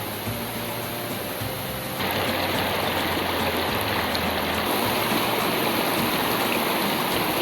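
Flowing water rushing steadily, like a monsoon stream or waterfall, growing louder about two seconds in.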